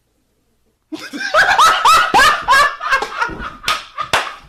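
Silence for about a second, then loud laughter: a few high, rising whoops followed by a run of shorter bursts.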